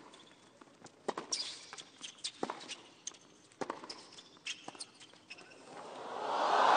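Tennis rally on a hard court: sharp racket-on-ball hits about once a second, with players' footsteps between them. About six seconds in, crowd applause and cheering swell up loudly as the point ends.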